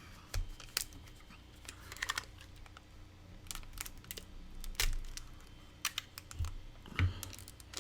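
Scattered light clicks and taps of sealed trading-card packs being handled and set down on a tabletop, with a few duller knocks.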